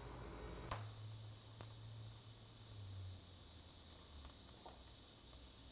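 Faint, steady high hiss and buzz of a TIG welding arc on exhaust tubing, with a low hum for the first few seconds. A sharp click comes about three-quarters of a second in.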